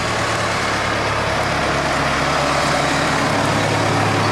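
Valtra tractor's diesel engine running steadily under load, working to pull a tree down.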